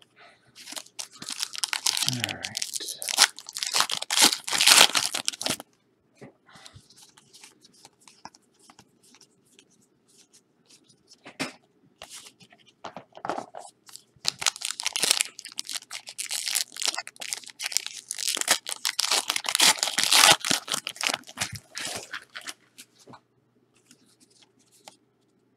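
Trading-card pack wrappers being torn open: crinkly wrapper ripping and crumpling in two long stretches, starting about a second in and again from about fourteen seconds, with small rustles between.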